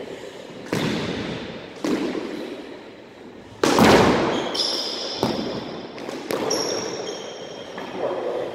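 Squash ball striking racket, walls and floor in a series of sharp knocks about a second apart, each echoing around the enclosed court, the loudest near the middle. High squeaks from shoes on the wooden court floor follow in the second half.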